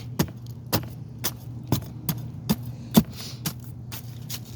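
Digging through icy, frozen soil in a potato container: a run of sharp clinks and knocks, about two a second, as shards of ice and bits of brick are struck and shifted, over a steady low hum.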